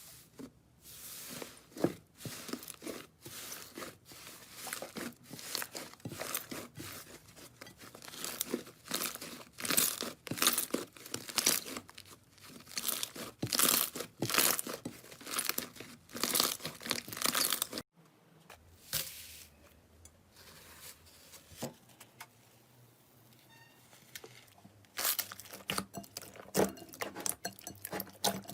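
Slime being squeezed and stretched by hand, giving dense irregular crackling and popping. The crackling breaks off suddenly about two-thirds of the way through, goes quieter, then picks up again near the end.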